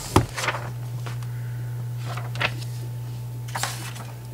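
A few brief rustles and knocks of food packaging being handled while reaching into a box, over a steady low hum.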